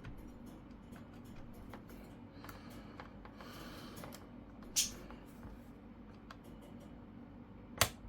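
Small clicks and light taps of laptop parts being handled as a Wi-Fi card is fitted into its slot, with two sharper clicks, one about five seconds in and one near the end, over a faint low hum.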